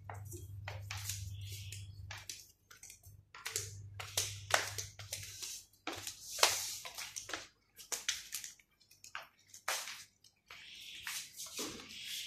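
A wire birdcage being carried and handled: irregular rattles, knocks and rustles, with a low steady hum in the first few seconds.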